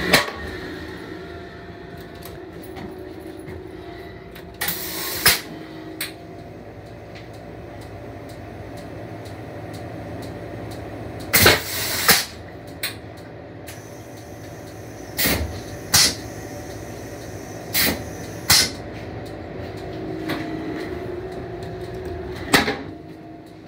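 Steady hum inside a Comet IV rail coach's stainless-steel restroom, broken by about a dozen sharp knocks and clunks at uneven intervals, some coming in close pairs.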